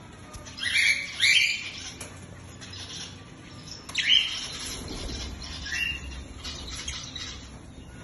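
Lutino cockatiel calling: two loud calls in quick succession about a second in, another about four seconds in, and a shorter one near six seconds.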